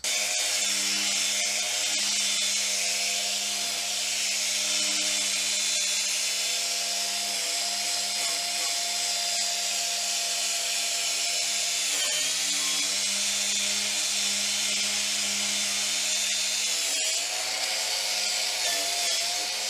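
Grinder spinning a wire wheel, scrubbing rust off a metal bandsaw table: a steady motor whine with a high brushing hiss. Its pitch dips briefly twice, about twelve and seventeen seconds in.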